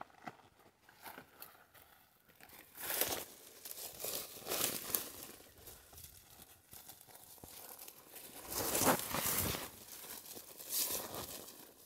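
Rustling and crunching of dry vegetation, in four or five uneven bursts.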